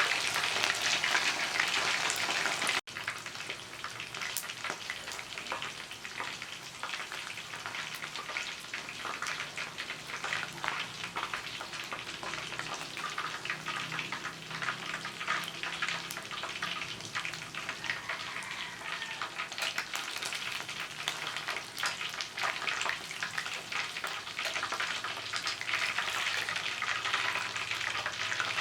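Chicken wings frying in hot oil: a steady sizzle full of small crackles and pops. It is louder for the first three seconds, then after a sudden break carries on more quietly.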